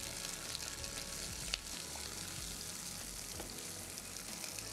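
White fish fillets sizzling steadily in hot oil in a frying pan as they are turned with metal tongs, with one sharp click about a second and a half in.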